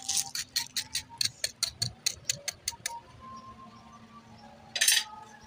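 A metal spoon tapping quickly on crisp, deep-fried breaded bread patties, about five sharp taps a second, to show how crunchy the crust is. The tapping stops about three seconds in, and a short crunchy rustle comes near the end.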